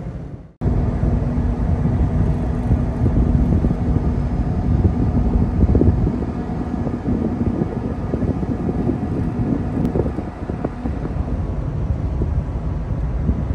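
Wind buffeting the microphone in the open air high on a moving tanker: heavy, uneven gusting noise, strongest in the low range, with a faint steady hum underneath for the first several seconds. The sound drops out for a moment just after the start.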